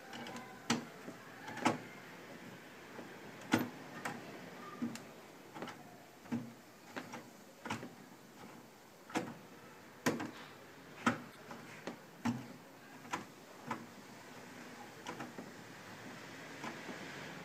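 A series of irregular sharp clicks and light knocks, roughly one a second, over faint background noise.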